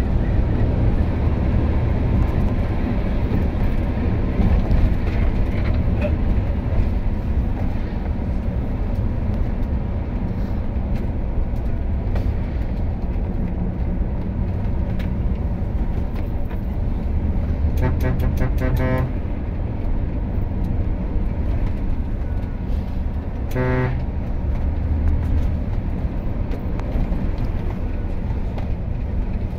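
Steady engine and road noise inside a moving bus's cabin. A horn sounds twice: a blast of about a second just past the middle, and a shorter toot some five seconds later.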